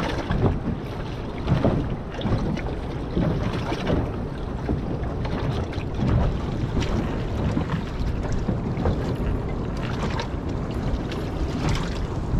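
Strong wind buffeting the microphone over the rush of choppy sea around a small boat, with irregular surges as gusts and waves hit.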